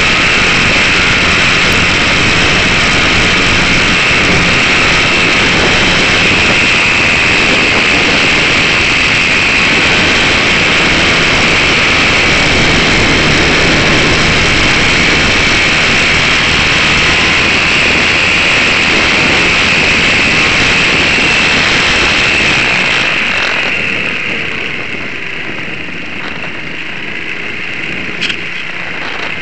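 Electric motor and propeller of a GWS Slow Stick RC airplane running steadily, heard from a camera on board. About 23 seconds in the sound drops off as the plane comes down low over the grass.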